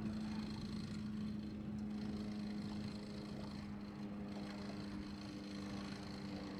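Steady hum of the boat's motor running, with a constant wash of background noise.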